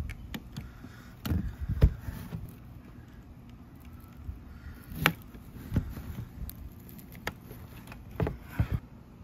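Scattered clicks and light knocks as the point of a spade drill bit is pressed and shifted against a plastic body panel to dent the hole positions; the drill is not running. The loudest knock comes about two seconds in.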